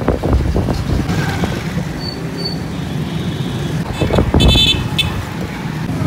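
Honda motorcycle running on the move along a busy street, with traffic around it and a brief vehicle horn toot about four seconds in.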